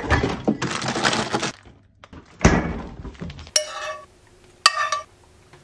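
Clatter of things being handled, a sharp knock about two and a half seconds in, then two short ringing clinks of a metal spoon against a frying pan.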